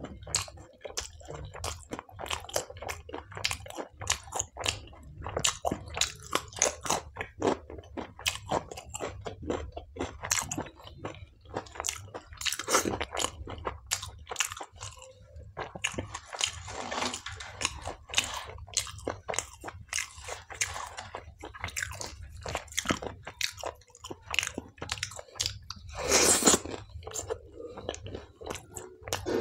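Close-miked eating of palak paneer with naan and salad: steady chewing and biting, with many short crunches and wet mouth clicks, and one louder crunch near the end.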